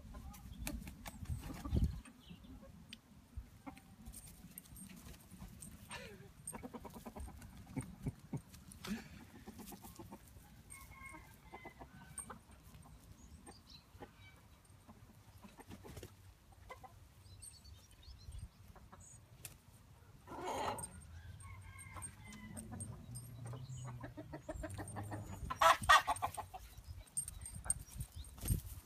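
Chickens clucking, with short calls scattered throughout, a louder drawn-out call about twenty seconds in, and the loudest call a few seconds before the end.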